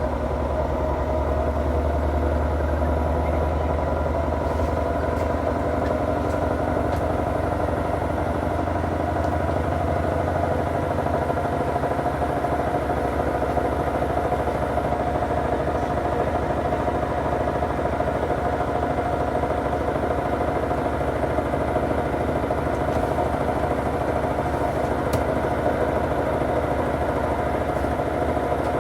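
Hoover washing machine spinning its drum: a steady motor whine and rumble with the drum bearings audibly grinding, a sign the bearings are worn. A low hum underneath fades away about eleven seconds in.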